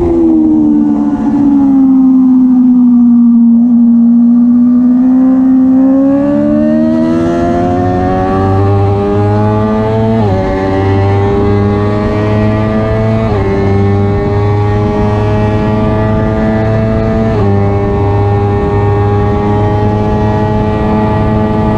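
Suzuki race motorcycle's engine heard from onboard. It falls in pitch as the bike slows through a turn, stays low for a few seconds, then climbs steadily under hard acceleration. There are three upshifts in the second half, each a sudden drop in pitch before it climbs again.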